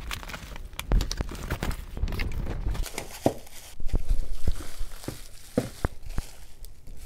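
Plastic bubble wrap crinkling and rustling as wrapped model train locomotives are handled, with scattered light knocks as they are set down on a wooden tabletop.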